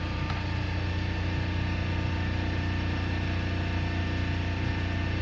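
Mazak lathe running steadily: a constant machine hum with several steady tones.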